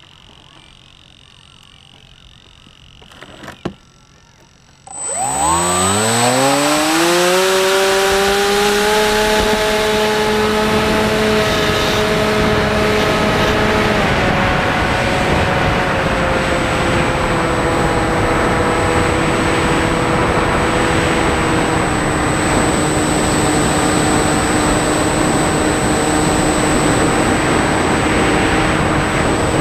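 Radio-controlled airplane's motor and propeller, heard from a camera on board. About five seconds in, the motor spools up with a rising pitch to a loud steady drone with a thin high whine and rushing air as the plane takes off and climbs. The pitch steps down a few times in the second half.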